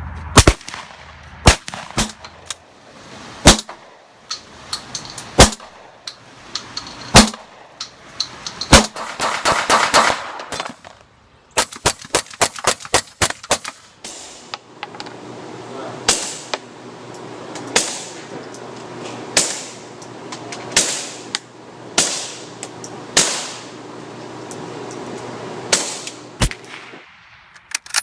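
Suppressed gunfire: single shots spaced a second or two apart, then two quick strings of rapid shots in the middle, then slower single shots about every second and a half. A faint steady hum sits under the later shots.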